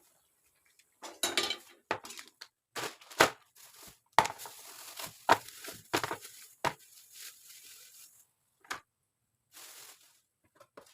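Cookware and kitchen utensils clinking and scraping: a string of sharp knocks with stretches of scraping between them, the loudest knock about three seconds in.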